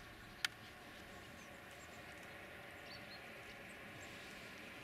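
Quiet outdoor ambience with a single sharp click about half a second in, and a few faint, short, high chirps near the middle.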